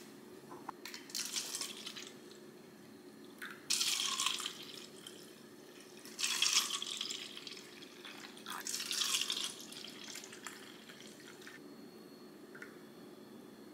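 Liquid poured from a stainless steel pot into plastic cups, splashing in four short pours of about a second each, a few seconds apart.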